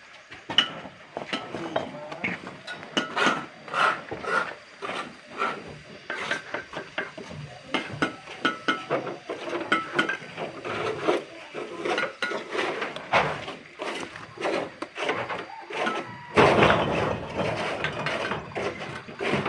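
A busy run of irregular knocks, taps and clatter, with a louder scraping, rustling burst about three seconds before the end.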